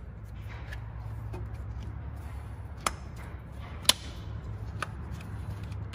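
Ignition coils on a VW 2.5-litre five-cylinder being pushed down onto the spark plugs, seating with a few sharp clicks, the loudest about four seconds in, over a low steady hum.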